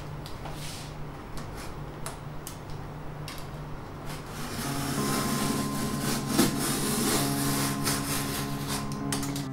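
Box cutter slicing through packing tape and cardboard on a large shipping box: irregular scraping, rasping and clicking strokes, busier in the second half. Background music comes in about halfway.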